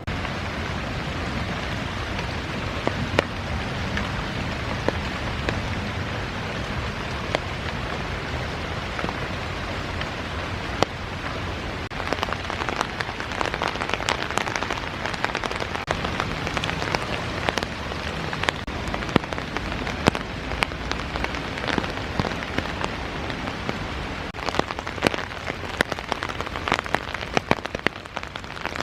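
Steady rain falling, with heavy drops striking close by as sharp taps that come more often from about halfway through.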